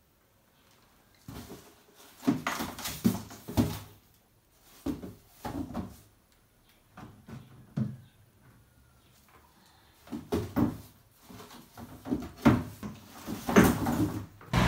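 Irregular knocks, clatters and rustles of someone moving about and handling things close to the microphone, with short pauses between them.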